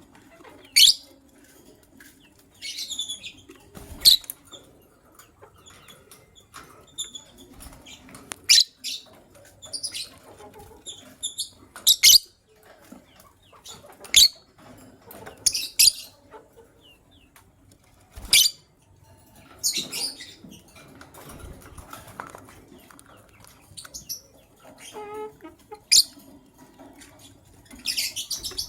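Pet lovebirds chirping: sharp, high, short calls every second or two, some of them loud, with short scratchy bursts between them.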